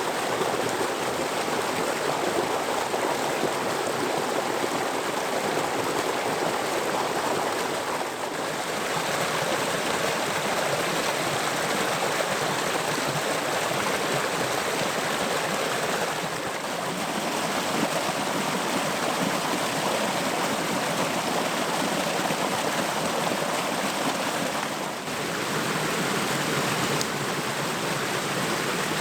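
Running water from a waterfall and its creek, a steady, dense rush that briefly dips in level three times.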